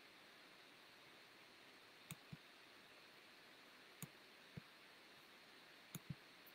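Faint computer mouse clicks, in three pairs about two seconds apart, over near silence.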